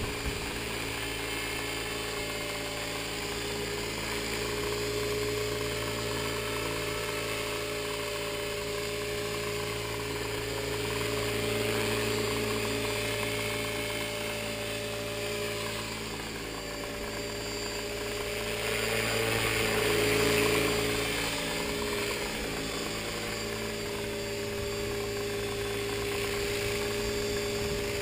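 Tarot 450 electric RC helicopter hovering: its motor and rotors give a steady whine and buzz, swelling a little in loudness twice.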